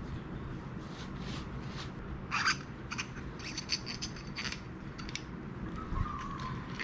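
Scratchy rubbing strokes as a Chris King freehub body is cleaned by hand, one louder stroke about two and a half seconds in and a quick cluster of them a little later.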